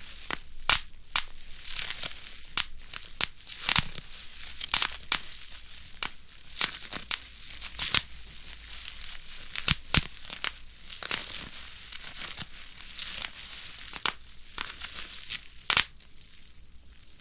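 Bubble wrap being crushed by hand: sharp pops at irregular intervals, a few per second, over continuous crinkling of the plastic sheet.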